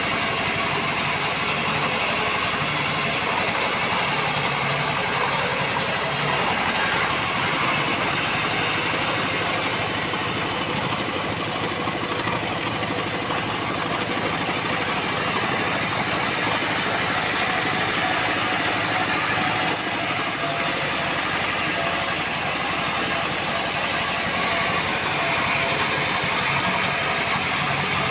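Sharp power saw blade cutting teak wood: a steady, shrill, continuous cutting noise over the running motor.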